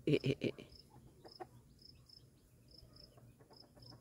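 Crickets chirping steadily in a high, regular rhythm of about three chirps a second. Near the start, three quick louder pitched calls.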